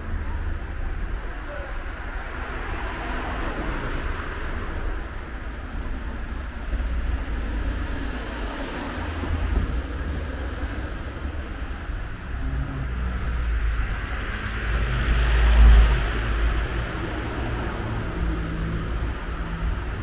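Street traffic: cars driving past on the road beside the pavement, with one louder pass about three-quarters of the way through.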